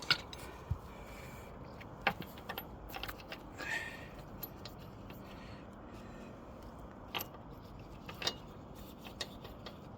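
Scattered light metallic clinks and taps, about eight spread over several seconds, as wheel nuts are handled and fitted onto a car wheel.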